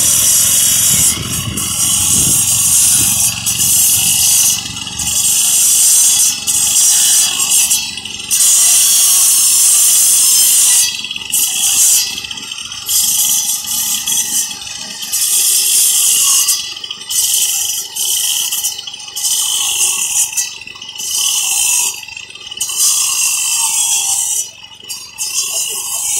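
Handheld single-blade wall-cutting machine cutting a channel into a concrete block wall for wiring: a loud, high-pitched grinding hiss from the disc in the masonry. In the second half the cut keeps dropping away briefly every second or two.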